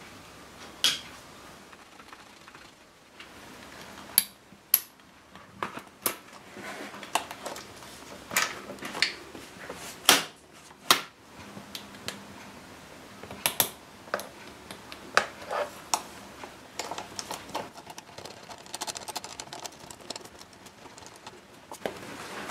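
Scattered small metallic clicks and taps at irregular intervals from hand work on a Suzuki Hayabusa's throttle cables and throttle body pulley, as the new cables are fitted.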